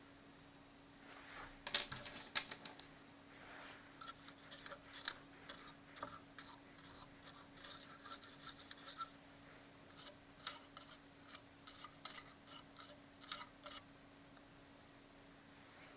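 Hands and small tools handling the opened Victor PC-W330 radio cassette recorder: irregular clicks, scratches and scraping of small plastic and metal parts, in quick bursts from about a second in until near the end, over a faint steady hum.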